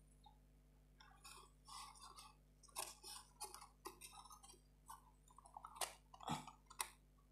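Thin plywood pieces being handled and pushed into slots by hand: faint, irregular small wooden clicks, taps and scrapes, with a few sharper clicks in the second half.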